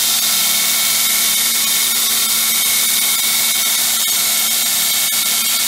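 Heretic 2" x 72" belt grinder running free at 7,000 surface feet per minute, with no work on the belt: a steady hiss with a steady hum underneath.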